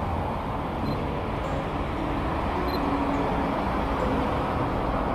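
Steady street traffic noise, cars driving past on a city road.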